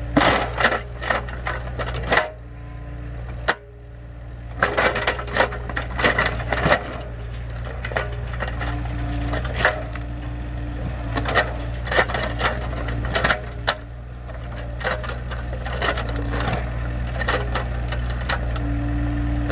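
Mini excavator's engine running steadily under load as the bucket digs around an acacia tree stump, with many sharp cracks and knocks of roots snapping and the bucket working. A steady whine comes in a few times, most clearly about halfway through and near the end.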